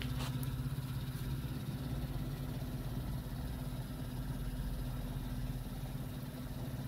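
Akai GX-210D three-motor reel-to-reel tape deck running with its reels turning: a steady low motor hum, with a couple of faint clicks just after it begins.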